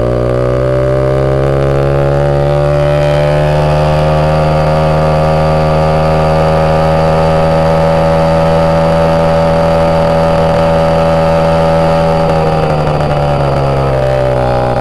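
Moped engine running while riding, its pitch climbing a little over the first few seconds, holding steady, then falling away about two seconds before the end.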